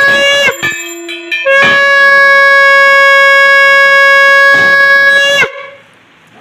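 Conch shell (shankha) blown in long steady notes, the puja's ritual call. A blow ends with a downward bend about half a second in; after a short break a second long blow holds steady for about four seconds, then drops in pitch and stops.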